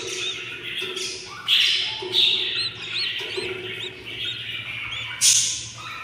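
Baby budgerigar chicks begging for food: a run of thin, repeated chirps broken by loud, raspy squawks about a second and a half in, again just after two seconds, and near the end.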